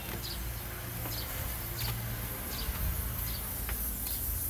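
Outdoor insect buzz with short high chirps repeating about every 0.7 seconds over a low steady hum.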